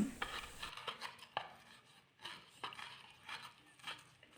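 Chili peppers, garlic and shallots being ground with a mortar and pestle: soft, irregular knocks and scrapes of the pestle, one or two a second.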